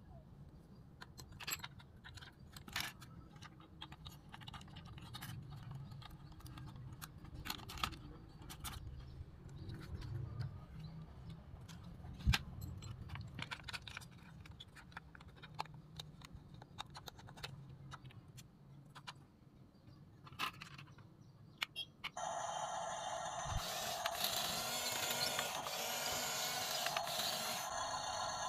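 Small plastic clicks and ratcheting from a toy RC bulldozer's drive sprocket and gears being turned by hand. About 22 seconds in, a louder steady mechanical running sound starts suddenly and keeps going.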